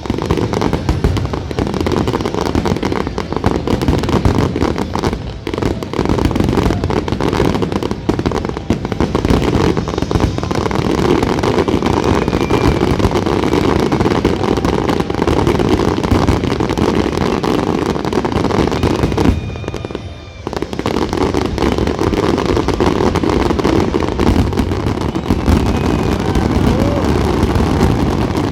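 Dense fireworks barrage: a continuous rapid crackle of bursts and bangs, with a brief lull about two-thirds of the way through.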